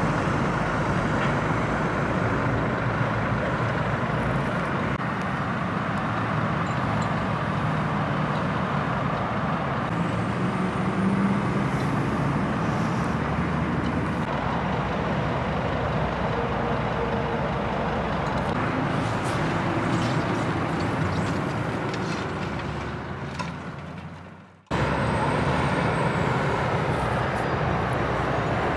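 Steady motorway traffic: cars and trucks passing in a continuous rush of engine and tyre noise. About 24 seconds in it fades away and then cuts straight back in.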